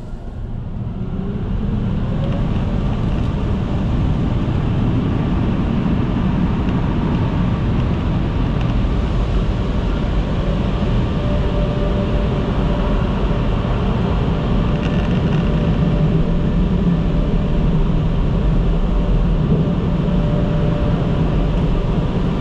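Proto-Vest car wash dryers blowing, heard from inside the car: a loud, steady rush of air with a faint steady whine. It swells up over the first couple of seconds, then holds.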